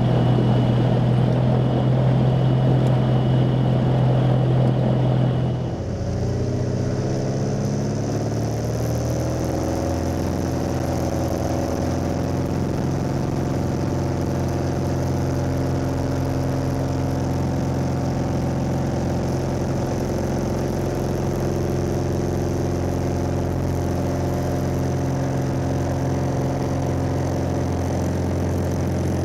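Cirrus SR20's 200-horsepower piston engine and propeller running steadily. About six seconds in the sound changes, and its pitch climbs over a few seconds before holding steady.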